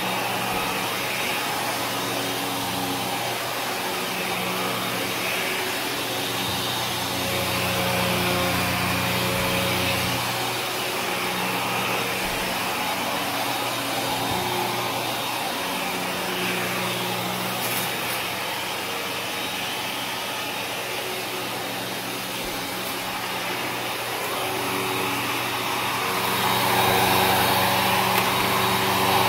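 12-amp Kenmore upright vacuum running steadily as it is pushed over carpet, its motor hum and airflow hiss mixed with the crunch of debris being sucked up. It grows louder near the end.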